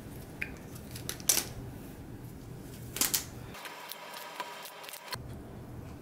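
Plastic toy train track sections clacking and clicking as they are handled and pulled apart, with a few sharp clicks, the loudest about a second in and two more about three seconds in.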